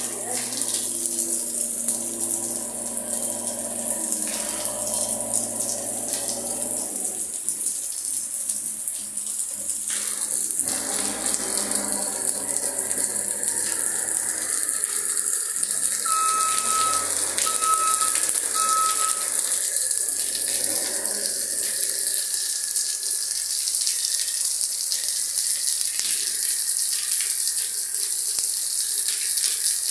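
Heavy rain falling steadily, with a backhoe loader's engine running underneath it, plainest in the first several seconds. About halfway through come three short, evenly spaced beeps.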